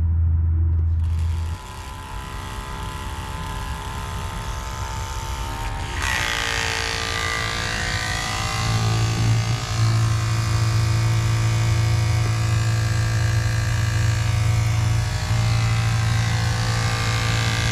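Small 12-volt electric water pump running steadily with a hum, pumping new automatic transmission fluid through clear hose into the gearbox. The hum gets stronger about eight or nine seconds in.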